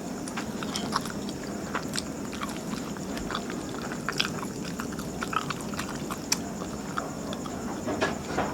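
Close-miked chewing of martabak manis, a thick sweet Indonesian pancake, with irregular wet mouth clicks and smacks over a steady background hum.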